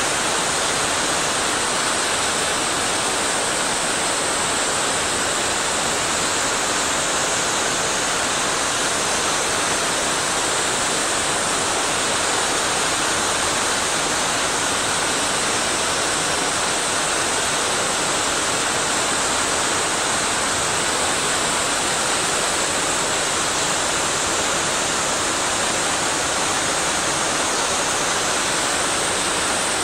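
Waterfall and mountain stream water rushing over rocks, a steady, even rush without pause.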